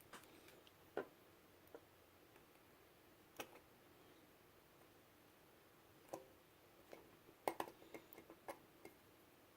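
Quiet, scattered small clicks and taps of wires and hand tools being handled while soldering connections, irregular and spaced out, coming thicker toward the end.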